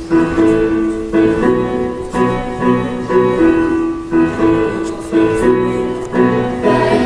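Piano accompaniment played on a keyboard: sustained chords struck in a steady rhythm, an instrumental introduction with no singing yet.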